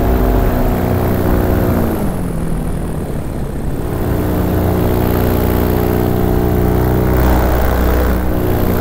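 Paramotor engine and propeller running loud and steady. About two seconds in the throttle eases and the pitch drops, then it settles into a steady run at a lower pitch.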